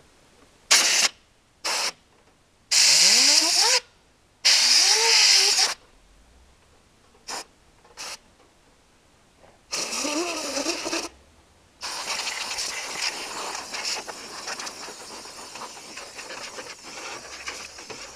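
Compressed-air blowgun blowing dust out of a desktop computer case in a series of hissing blasts, some short, some over a second long. During a few of the blasts a whine slides up and wavers in pitch. A longer, weaker stretch of uneven hissing fills the last six seconds.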